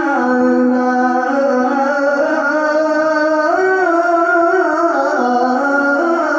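Man's voice reciting the Qur'an in melodic tilawah style, amplified through a microphone, drawing out one long ornamented note without a break. The pitch steps up about three and a half seconds in, then settles back.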